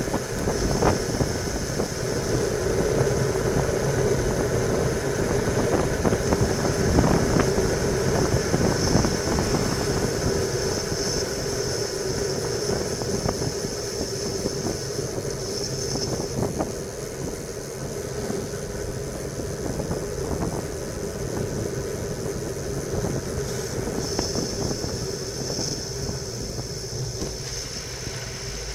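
Wind rushing over the microphone and tyres humming on asphalt as a road bike descends at speed, with frequent small knocks and rattles from bumps in the road. Louder during the fast middle stretch, quieter near the end as the bike slows.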